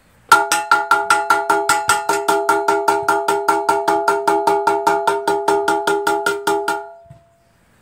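A hammer rapidly tapping a cast-aluminium Kohler Courage engine casting, about six blows a second, each ringing with a bell-like metallic tone; it stops about a second before the end. The tapping knocks a crack in the casting back flush so that it can be sealed with JB Weld.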